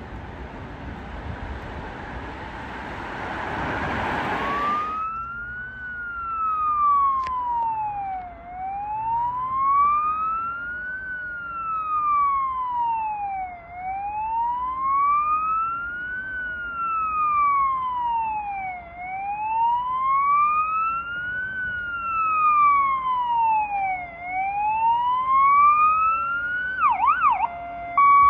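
A car passing close with a rising rush of tyre and road noise, then a fire engine's siren on an emergency run: a wail sliding slowly up and down about every five seconds. Near the end it switches to a quick yelp and then to an alternating two-tone.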